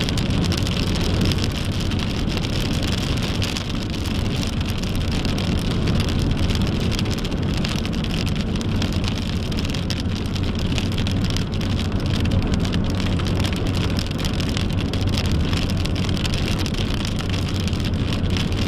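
Rain falling on a moving car's windshield and roof, heard from inside the cabin over steady road and engine noise.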